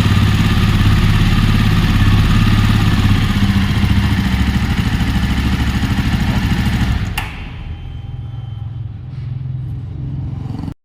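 Jawa motorcycle's single-cylinder engine idling with a dense, steady exhaust beat. About seven seconds in there is a sharp click, and the sound drops to a much quieter low rumble.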